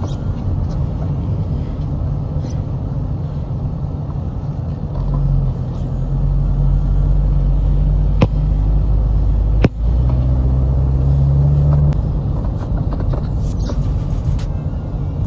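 Car cabin road noise while driving: a steady low rumble of engine and tyres that grows louder for several seconds midway. Two sharp clicks come about a second and a half apart.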